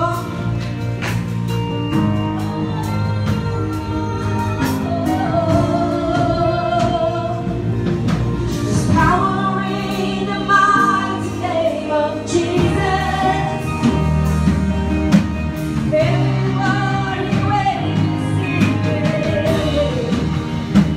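Gospel worship music: a singer leads a song over a band, with held bass notes and steady drum hits.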